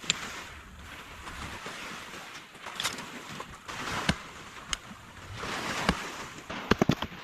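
Water washing in slow swells that come back every two seconds or so, with scattered sharp clicks and a quick cluster of knocks near the end.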